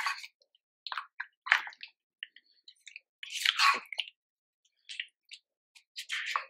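Silicone spatula mixing sauce into raw chicken pieces and potato chunks in a ceramic bowl: a string of short wet squelches and scrapes, the longest about three and a half seconds in.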